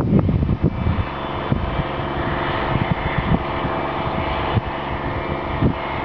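A Challenger rubber-tracked tractor's diesel engine running steadily. It is rougher and louder for about the first second, with a few short knocks later.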